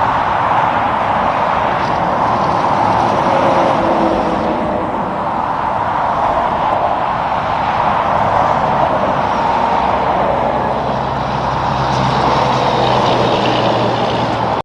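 Road traffic passing: a steady rush of tyre and engine noise from vehicles on the road, with a lower engine hum joining about ten seconds in.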